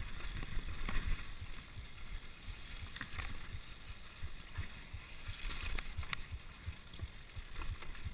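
Downhill mountain bike on a dirt forest trail: rumbling tyre and wind noise with constant small jolts, and a few sharp clicks and rattles from the bike over rough ground, about one, three and six seconds in.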